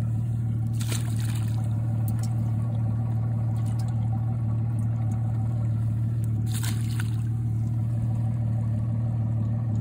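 Bass boat livewell pump humming steadily while water trickles in the well. Two brief splashes of water, about a second in and near seven seconds, as a hand reaches into the livewell.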